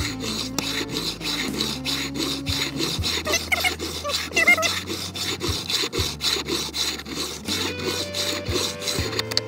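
A file rasping back and forth along the edge of a guitar fretboard in steady, repeated strokes, dressing the ends of the fret wire flush with the wood.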